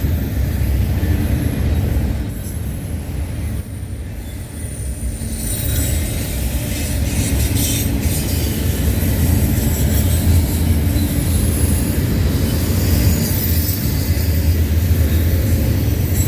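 Two freight trains passing each other on adjacent tracks: a heavy, steady rumble of freight cars rolling by, with thin high wheel squeal and some clicking of wheels over the rails.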